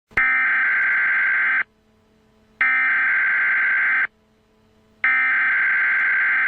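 Emergency Alert System SAME header: three identical bursts of data tones, each about a second and a half long with about a second's pause between them. This is the coded header that opens an emergency alert broadcast.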